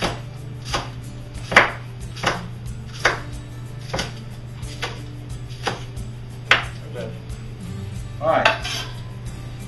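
Chef's knife chopping green onions on a bamboo cutting board: about nine single strokes, a little under one a second, each a sharp knock of the blade on the wood. Near the end, the chopped onions are scraped off the board into a stainless steel bowl.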